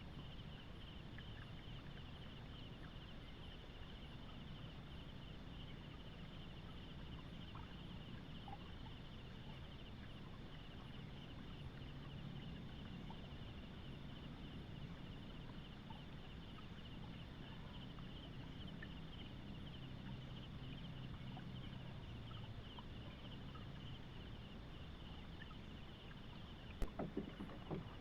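Faint forest ambience: a steady, rapidly pulsing high insect trill over a low frog chorus, with a few sharp knocks near the end.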